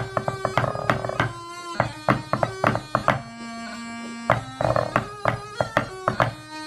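Drumsticks striking a rubber practice pad in quick, sharp taps and short rolls, playing a pipe-band snare score along with bagpipe music whose held melody notes and drone run underneath.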